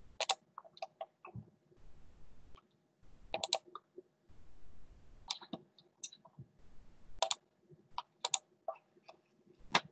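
Light, irregular clicks of a computer mouse and keyboard, some in quick pairs, while a presentation file is being found and opened.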